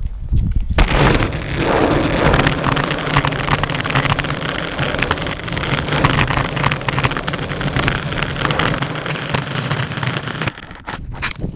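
Skateboard wheels rolling over rough asphalt, heard close up: a steady gritty rumble with rapid clicks. It starts about a second in and fades near the end, followed by a few sharp knocks.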